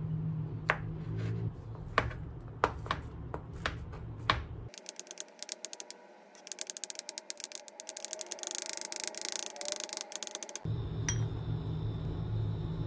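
Knife cutting cocktail sausages on a plastic cutting board: single sharp slices about every half second, then a fast run of chopping strokes as the slices are diced.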